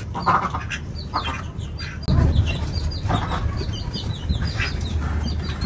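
Young chicks cheeping: many short, high peeps repeating, with a low steady rumble from about two seconds in.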